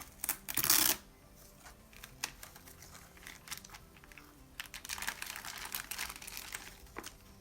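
Crinkling plastic wrap and light clicks as a mechanical keyboard in its wrapper is handled. A loud rustle comes in the first second, and a second spell of crinkling and clicking comes about five seconds in.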